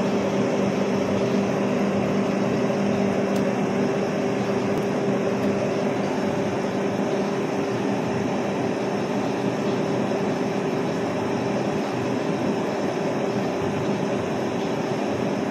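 Puzzolana cone crusher running steadily: a continuous machine noise with a constant low hum under it.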